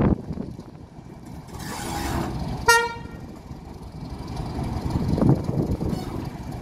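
Class 31 diesel locomotive's English Electric V12 engine rumbling as it runs slowly toward the platform, with one short toot of the horn about two and a half seconds in.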